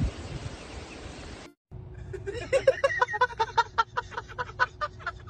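A person laughing in quick repeated bursts, about five a second, starting about two seconds in after a brief cut-out, over a faint steady hum.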